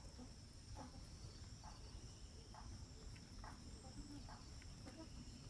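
Faint, steady, high-pitched insect trill as outdoor background, with faint short chirps about once a second.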